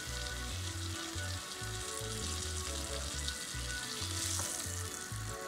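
Pieces of hake frying in a pan of hot oil, sizzling steadily as a fork turns and lifts them.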